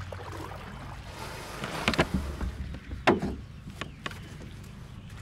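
A few sharp knocks and clatters of gear against a fishing kayak, about two, three and four seconds in, the one near three seconds the loudest, over a low steady rumble.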